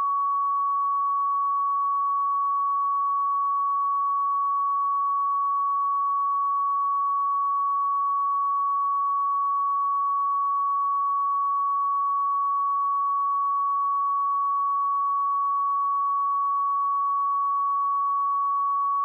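A pure 1123 Hz sine-wave test tone, held steady at one pitch and level with no harmonics, used for checking speakers and headphones.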